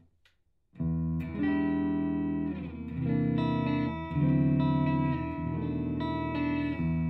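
Electric guitar played through an IK Multimedia TONEX amp-modelling pedal: sustained, ringing chords that begin about a second in and change about every one and a half seconds.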